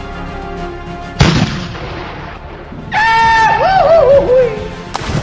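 A cannon-shot boom sound effect about a second in, over background music. Later comes a wavering tone falling in pitch, then a sudden splash near the end.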